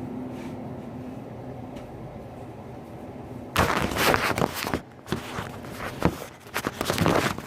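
A low steady hum, then about three and a half seconds in, loud irregular bursts of scraping and clattering from kitchen handling.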